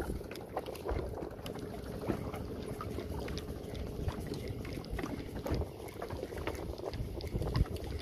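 Small waves lapping and slapping irregularly against a wooden boat's hull, with wind rumbling on the microphone.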